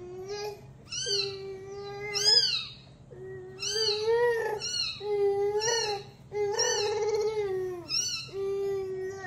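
A very young kitten mewing over and over, about eight short high meows roughly a second apart.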